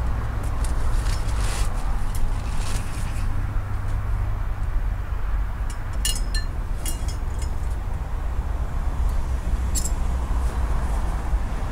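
Tent poles clinking and clicking as their sections are handled and fitted together, a few sharp clinks about six to seven seconds in and one near ten seconds. Under them, a steady low rumble of road traffic.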